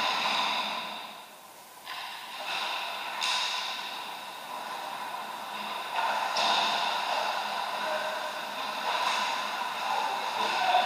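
Ice hockey skates scraping and carving on the rink ice, with three sharper scrapes about two, three and six seconds in, over a steady background hiss.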